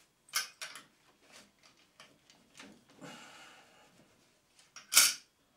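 Brass miner's safety lamp being wiped over with a cloth and handled: soft rubbing and a run of small metallic clicks and knocks, with one sharper knock about five seconds in, the loudest.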